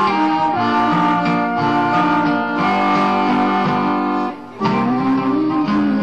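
Live band music with guitar strumming and an accordion holding chords in an instrumental passage. It drops away briefly about four and a half seconds in, then comes back.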